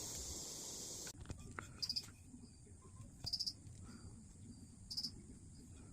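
A steady hiss cuts off abruptly about a second in. After it, a cricket chirps in short pulsed bursts, three times about a second and a half apart, over a quiet background.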